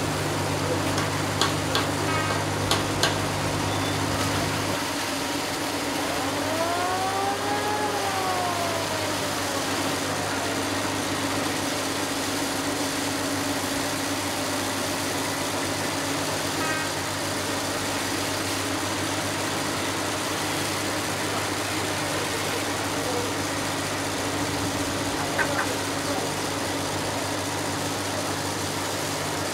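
A boat engine running steadily with a low hum whose note shifts about five seconds in. About seven seconds in, a brief tone rises and falls once.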